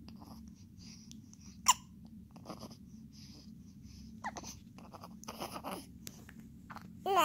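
A one-month-old baby hiccupping: a sharp hiccup about a second and a half in, the loudest sound, another near the middle, and a short high-pitched squeak near the end, with soft breathing in between.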